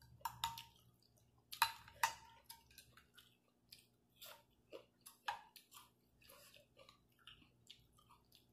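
Close-up eating sounds: chewing, with a metal spoon and chopsticks clicking and clinking against a glass dish many times. The sharpest clinks, ringing briefly, come about one and a half and two seconds in.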